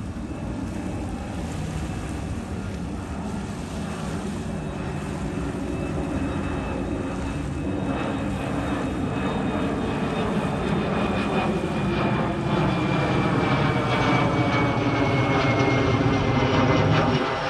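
Twin-engine narrow-body jet airliner climbing out overhead after takeoff, its engines growing steadily louder as it nears. A high fan whine slides slowly down in pitch as the plane passes above.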